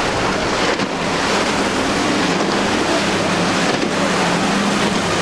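Outboard engines of a center-console boat running at speed through rough inlet water, a steady low drone under the louder rush of surf, hull spray and wind on the microphone.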